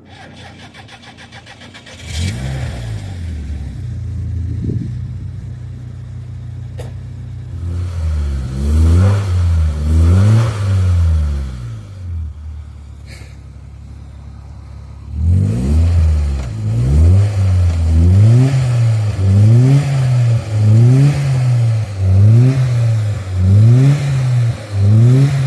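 UAZ Simbir engine starting about two seconds in and idling, then revved: a few blips near the middle, and from about two-thirds of the way through a steady run of blips about one a second.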